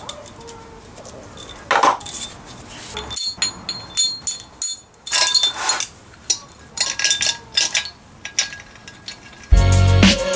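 Metal clinking and scraping as the steel washers, long bolt and plate of a flywheel puller are handled and fitted onto a classic Mini's clutch and flywheel, in short irregular clinks. Background music comes in suddenly near the end.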